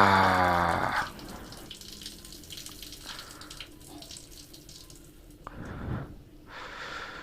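Water running from a bathroom tap. It starts with a loud, pitched rush for about a second, then runs quieter, with two louder splashing spells near the end.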